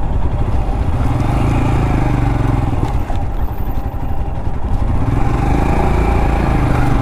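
Royal Enfield Himalayan Scram 411's 411 cc single-cylinder engine running under way on a rough gravel track. The engine note rises and falls twice as the throttle is worked, with a few clattering knocks about halfway through.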